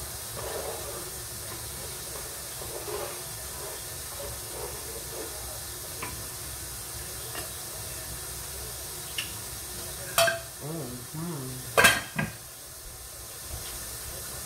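A spoon stirring and scraping in a large metal stockpot, over a steady hiss. About two-thirds of the way through come three loud metal clanks, the pot lid being set down on the pot.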